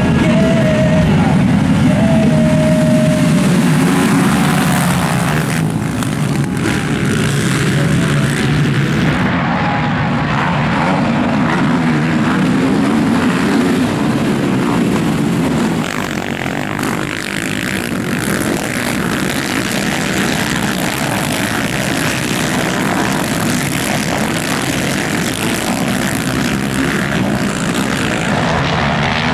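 Engines of a pack of racing quad bikes, revving and running hard together, the pitch rising and falling as the riders work the throttles.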